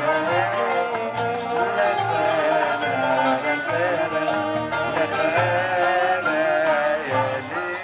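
Music with a wavering melody line over a regular low beat.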